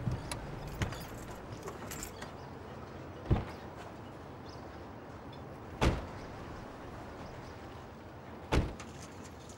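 Car doors shutting: three heavy thumps about two and a half seconds apart, with a few lighter clicks and handling sounds in the first second.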